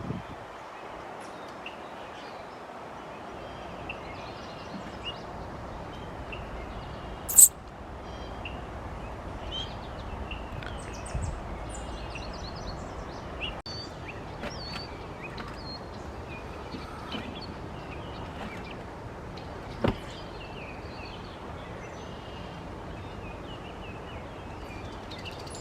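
Small birds chirping and calling, many short calls over a steady outdoor hiss. A sharp, loud click sounds once about seven seconds in, and a softer knock near twenty seconds.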